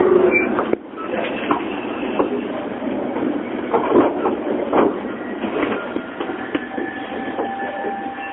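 811 series electric train (motor car MoHa 811-102) running on the rails: a whine dies away and the sound drops abruptly within the first second, then wheel rumble with repeated clicks and knocks over the track. A thin steady whine comes in about six seconds in.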